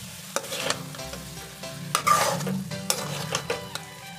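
Metal spatula stirring and scraping cauliflower masala around a metal kadhai, with a light sizzle from the frying and several sharp scrapes and knocks against the pan.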